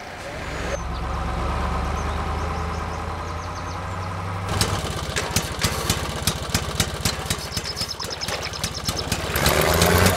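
Engine sound: a steady idle for the first few seconds, then an abrupt switch to a rapid, even chugging beat that gets louder near the end.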